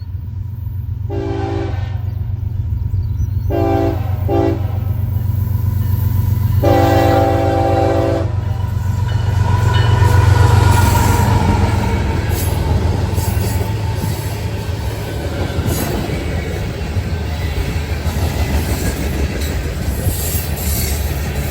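Diesel freight locomotive's air horn sounding four blasts, long, long, short, long, the grade-crossing signal, the last blast the longest. The locomotives' engines then rumble past, loudest about ten seconds in, followed by freight cars clattering over the rails.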